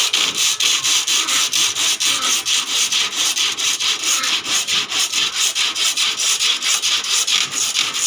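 Hand saw cutting through a thin wooden cage-frame batten, with quick steady back-and-forth strokes about three a second.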